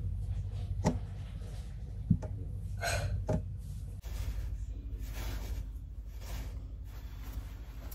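Steady low hum of the ferry carried through the cabin, with a few soft knocks and short rustling noises from movement in the bunk.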